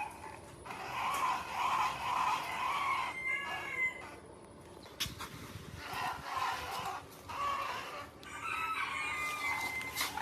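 Chickens calling, in three stretches of pitched, pulsing calls, with a single sharp knock about five seconds in.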